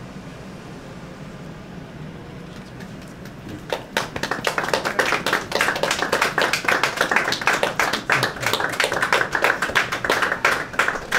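Quiet room tone, then a small group of people breaks into clapping a little over a third of the way in and keeps on applauding.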